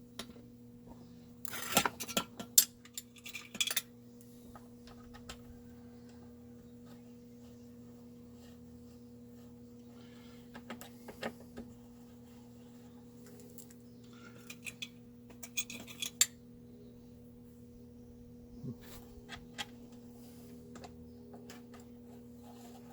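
Scattered metallic clinks and taps of hand tools and bolts being handled while the cylinder of a Stihl 036 chainsaw is bolted down, coming in several short clusters, over a steady low hum.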